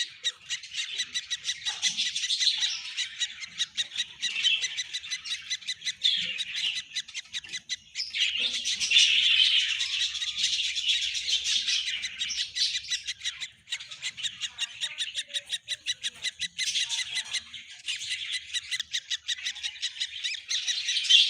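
Baby birds chirping, a dense run of rapid, high-pitched peeps with only brief lulls.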